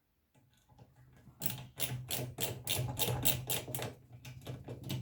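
A screwdriver tightening a screw into the receiver's metal rear shield. It makes a fast, even run of sharp clicks, about five a second, over a low steady hum, starting after a near-silent first second.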